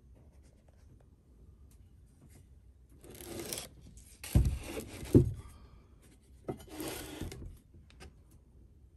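Handling noise: a rubbing scrape about three seconds in and another near the end, with two heavy thumps a little under a second apart between them.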